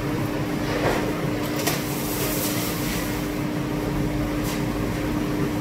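Steady mechanical hum of commercial kitchen machinery, with one constant pitched tone over a low rumble.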